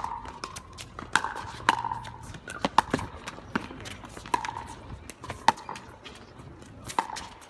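A pickleball rally: paddles strike the plastic ball and it bounces on the hard court, giving sharp pocks about once a second, eight or so in all.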